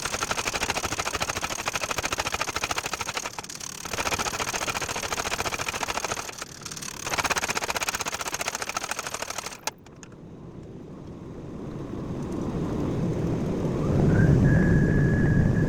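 Power hammer pounding hot steel bar stock in rapid, even blows, in three runs with short pauses, stopping sharply about two-thirds of the way in. A low roar then swells over a few seconds, and a steady high whine joins it near the end.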